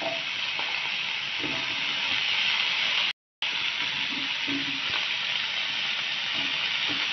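Raw banana pieces, coated in salt, turmeric and chilli powder, sizzling steadily in hot mustard oil in a frying pan as more pieces are dropped in. The sound cuts out briefly about three seconds in.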